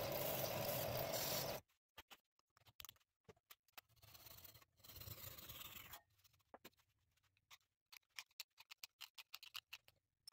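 Disc sander running with a steady hum, cutting off sharply about a second and a half in. Then a handsaw rasps through a wooden dowel for about two seconds, followed by light scrapes and clicks as the cut section is worked free.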